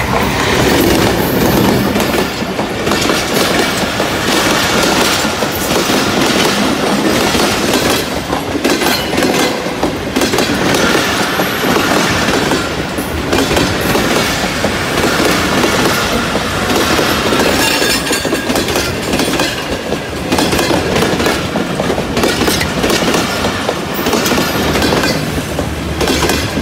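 Diesel locomotive passing close by, followed by a long passenger train whose wheels clatter over the rail joints at speed.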